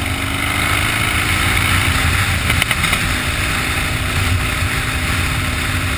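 Harley-Davidson V-twin motorcycle engine running steadily while the bike is ridden, heard from the rider's seat.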